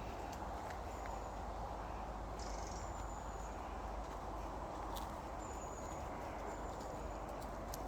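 Small birds giving short, thin high chirps several times over steady outdoor noise, with a few light ticks and crackles underfoot.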